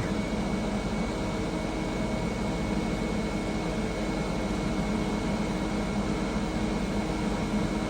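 Steady whir of cooling fans and electrical hum from a keyed CB amplifier and its bench power supply, with a faint high steady tone and no change throughout.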